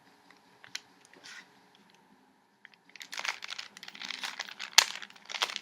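Rubik's cube being turned quickly by hand: a dense run of plastic clicks and rattles from about three seconds in, after a few faint clicks at the start.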